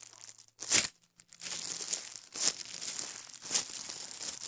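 Plastic packaging crinkling as it is handled, with a few sharper crackles: one just under a second in, then two more later on.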